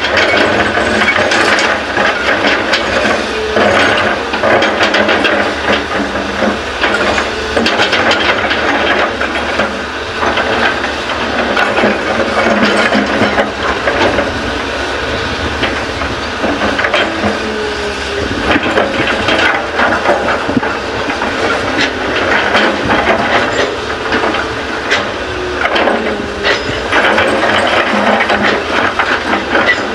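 A Hyundai excavator loading fill soil into a dump truck: steady, loud machine noise with a hiss and many scattered clatters and knocks throughout.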